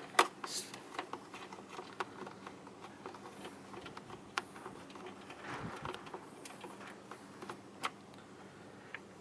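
Scattered light clicks and taps of a hand tool working on the 10 mm bolts of an engine's air intake duct.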